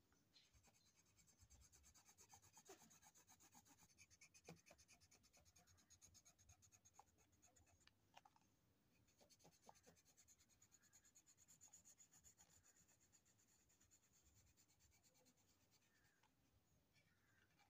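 Faint, fast scratching of a coloured pencil shading on paper in quick back-and-forth strokes, with a brief pause about halfway and easing off near the end.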